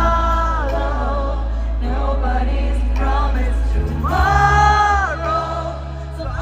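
Live pop concert music heard through the crowd's phone recording: a lead vocal over the band, holding long notes at the start and again about four seconds in, over a heavy sustained bass that eases off a little before then.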